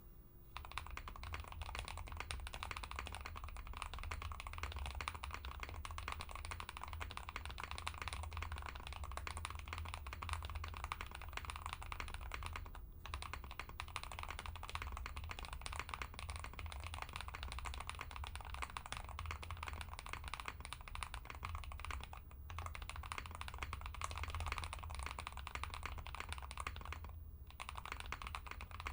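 Continuous typing on a QK65 mechanical keyboard with stock Gateron Quinn tactile switches, a polycarbonate plate with no foam, and PBT keycaps: a dense, steady clatter of keystrokes that starts about half a second in and pauses briefly three times.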